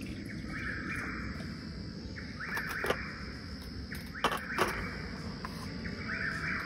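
Evening woodland chorus: a trilling call about a second long repeats every couple of seconds over a steady high insect drone, with a few sharp clicks.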